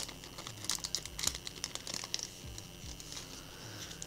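Foil booster pack wrapper crinkling and tearing as it is pulled open and the cards are slid out: a string of small crackles, thickest in the first half.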